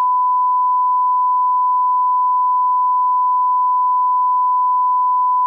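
A continuous electronic test tone: one pure, steady pitch like a 1 kHz reference beep, held loud and unchanging.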